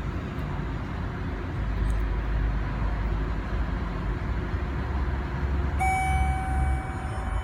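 Elevator car in motion: a steady low rumble of the lift running, heavier from about two seconds in until near the end. Near the end a steady electronic tone comes in and holds for about a second and a half.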